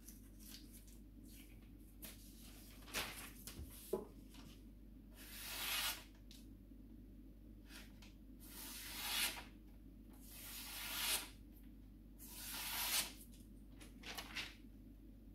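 A freshly sharpened carbon-steel gyuto knife slicing through a sheet of paper four times, as a test of the edge's sharpness. Each cut is a hiss of paper about a second long that rises and stops abruptly. A few light knocks from handling the knife come a few seconds in.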